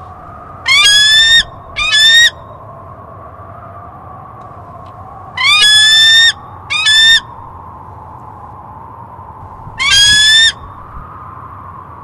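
Bald eagle calling: five loud, high whistled screams, in two pairs and then a single one. Each rises sharply at the start and is held for under a second, over steady background noise.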